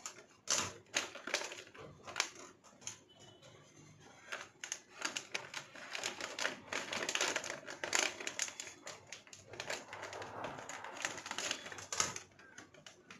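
Scissors snipping through a plastic-foil snack packet, with the packet crinkling as it is handled: a run of sharp clicks and rustles.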